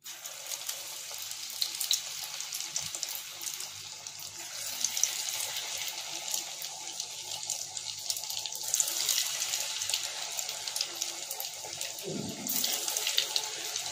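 Cabbage Manchurian balls deep-frying in hot oil: a steady sizzle with dense crackling that flares up as fresh batter balls are dropped in, most strongly near the end.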